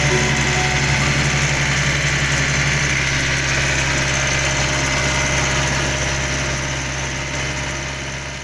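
Iseki NT450F tractor engine running steadily, fading out near the end.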